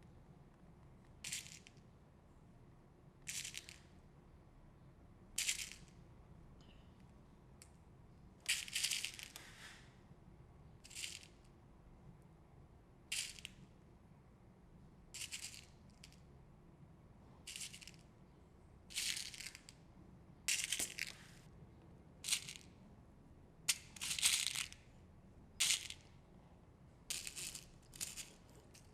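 Short crisp rattling bursts, about fifteen of them, each under a second, coming every one and a half to two seconds.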